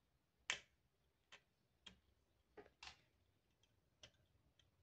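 Light metal clicks and taps as a quick-change presser foot clamp is turned by hand onto an industrial sewing machine's presser bar: about eight separate clicks, unevenly spaced, the loudest about half a second in.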